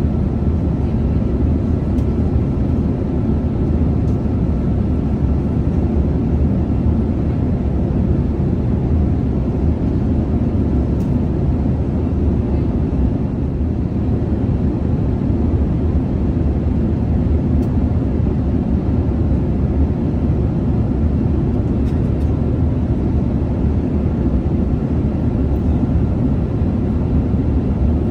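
Steady cabin noise of a Boeing 787-8 in cruise: an even, deep rumble of engine and airflow noise that neither rises nor falls.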